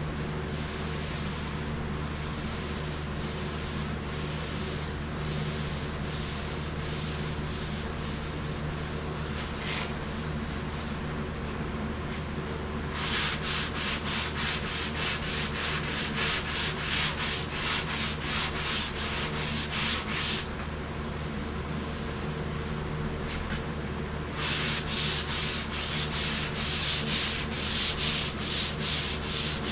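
Hand sanding of a car's body panel, with rapid back-and-forth strokes at about three a second in two long runs, the second starting after a pause of a few seconds. The panel is being sanded to show up flaws in the bodywork.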